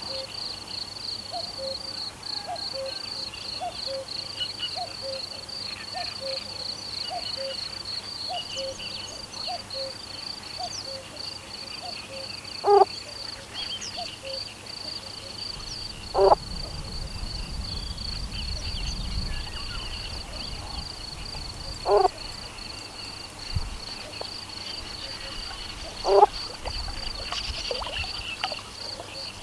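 Insects chirping in a steady, fast-pulsing high trill. Four short, loud calls from another animal break in at irregular intervals over the second half.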